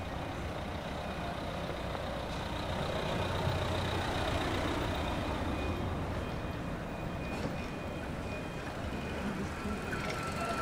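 Street traffic with a motor vehicle's engine running close by, swelling louder about three to five seconds in.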